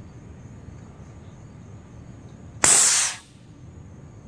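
Homemade compressed-air cannon built from an old fire extinguisher firing: a sudden loud blast of air about two and a half seconds in, hissing out over about half a second.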